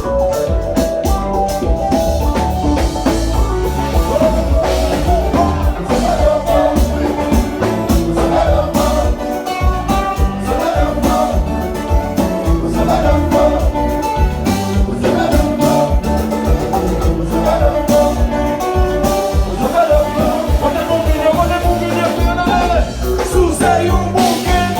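Loud music with singing, guitar and a steady beat, in a Latin-American dance style.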